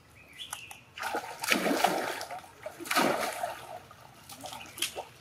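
Young monkeys splashing in a shallow pool of water: two big splashes, one about a second in and another about three seconds in, then smaller sloshing.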